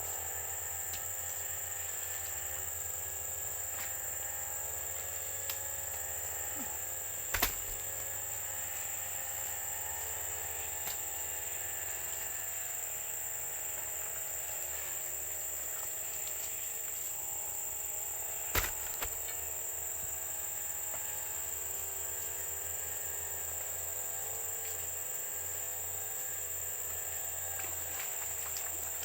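Steady chorus of crickets or similar insects, a constant high-pitched drone. Under it runs a fainter wavering hum, and two sharp knocks come about seven and eighteen seconds in.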